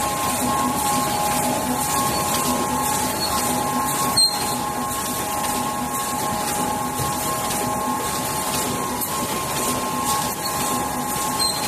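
Full-servo rotary tube screen printing machine running: a steady two-tone whine over a continuous mechanical hum, with one sharp click about four seconds in.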